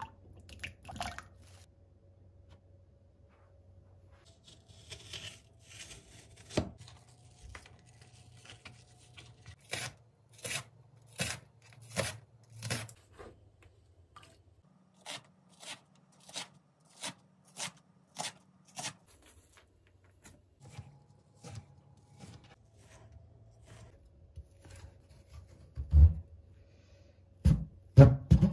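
Kitchen knife finely slicing green onion into shreds on a plastic cutting board: a long, even series of sharp taps, about two a second. Near the end come a few louder, heavier thuds as the knife cuts through a Korean radish.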